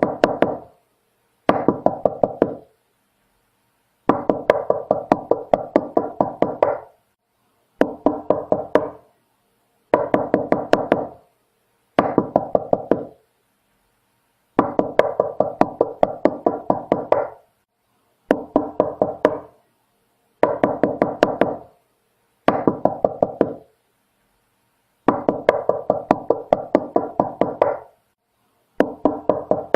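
Knocking on a door: repeated bursts of several quick knocks, about four or five a second, each burst lasting one to three seconds and separated by short silences.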